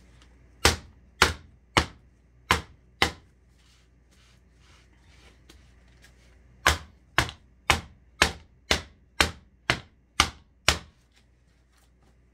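A Frostform cake mould filled with buttercream knocked down against a plastic cutting board. There are five sharp knocks about two a second, a pause of a few seconds, then nine more at the same pace.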